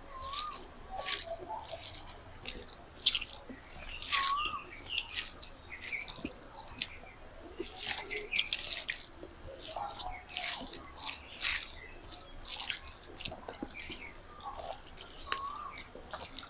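Close-up wet eating sounds of rice and curry being eaten by hand: soft squelches as fingers knead rice into the curry, with chewing and lip smacks coming as irregular short wet clicks, one or two a second.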